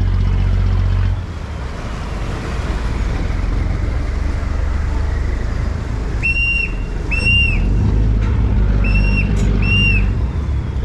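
River express boat's engine running, easing off about a second in and picking up again later as the boat comes alongside a pier. Two pairs of short, shrill whistle blasts sound just past halfway and near the end: the crew's whistle signals to the helmsman for docking.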